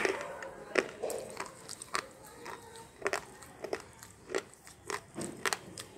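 Slate pencil being bitten and chewed, crunching between the teeth in sharp, uneven crunches about two a second.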